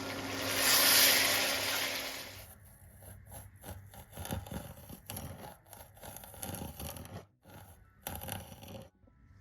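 Mutton hissing and sizzling hard in oil in a karahi, swelling about a second in and cutting off suddenly after about two and a half seconds. Then comes a run of irregular scraping strokes, a utensil scraping against the pan.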